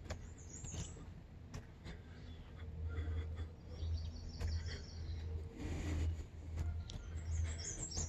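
Small wild birds chirping: a high twitter near the start, a quick run of about half a dozen repeated notes around four to five seconds in, and more chirps near the end, over a steady low rumble.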